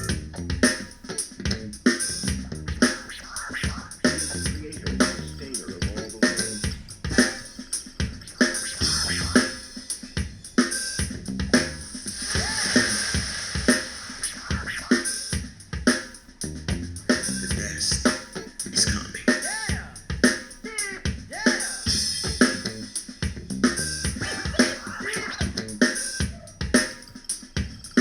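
Music with a driving drum-kit beat, snare and bass drum, played through an XDOBO Draco Mini Bluetooth speaker for a sound test.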